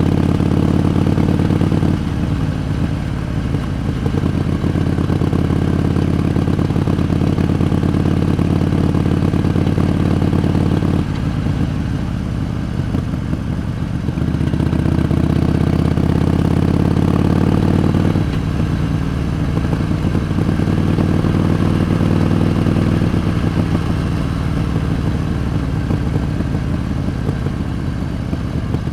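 Harley-Davidson Iron 883's air-cooled V-twin engine running on the move. The throttle eases off about 2, 11 and 18 seconds in, with the engine note drawing back each time and building again in between.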